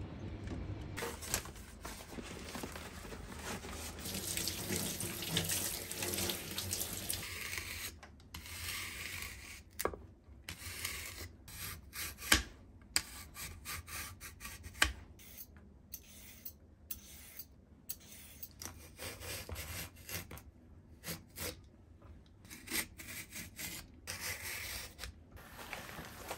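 Kitchen work sounds: water running in a sink for the first several seconds, then burdock root being shaved into thin strips with a handheld shaver, heard as a run of short, irregular scraping strokes with a few sharp clicks. Newspaper crinkles near the end.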